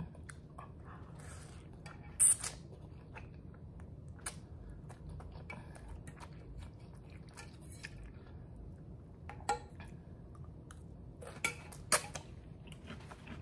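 A person chewing a mouthful of noodles close to the microphone, quietly, with a few sharp clicks and smacks scattered through; the loudest comes about two seconds in.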